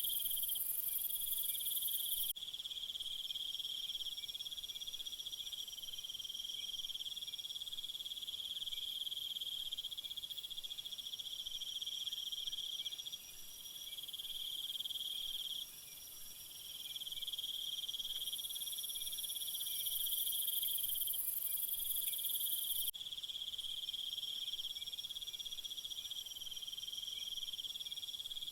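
Chorus of crickets and other insects: continuous high-pitched trilling in several overlapping pitches. A very shrill top layer cuts out abruptly about two seconds in, swells again later and cuts out once more near the end.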